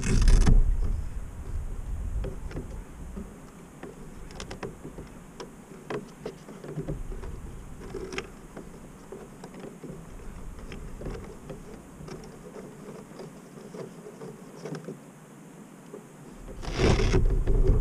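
Scattered light clicks and knocks of hands handling a foam RC model floatplane. Louder rushing noise at the very start and again near the end.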